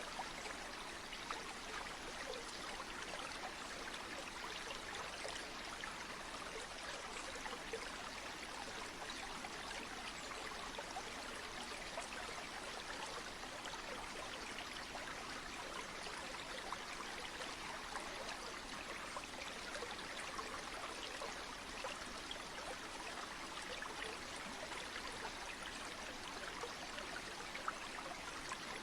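Flowing stream water: a steady, even rush with small sparkling splashes.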